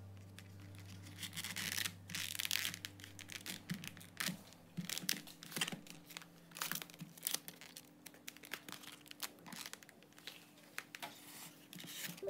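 Irregular crinkling and tearing noises, a busy run of small rustles and clicks, over a faint steady hum.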